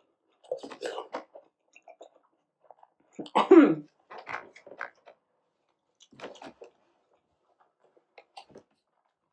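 Close-up eating sounds of someone biting into and chewing hot soup dumplings, coming in short separate bursts with quiet gaps between. The loudest burst, about three and a half seconds in, has a pitched, voice-like edge.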